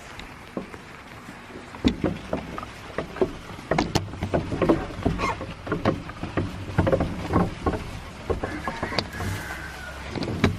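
Irregular knocks, clunks and scuffs, busiest through the middle, with a faint wavering squeal near the end.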